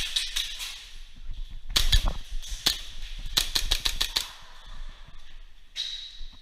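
Airsoft guns firing: sharp snapping shots in three quick strings during the first four seconds, then a couple of isolated shots near the end.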